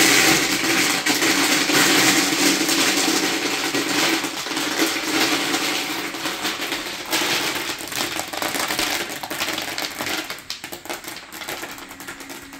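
ND2 bait boat's motor-driven bait spiral turning with a steady hum, while 8 mm pellets rattle and clatter against the hard plastic hopper as the auger feeds them out. The sound starts suddenly, and the rattling thins and grows quieter toward the end as the hopper empties.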